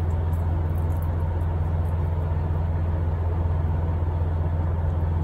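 Steady low hum of a running motor or electrical appliance, even and unchanging, with a faint hiss above it.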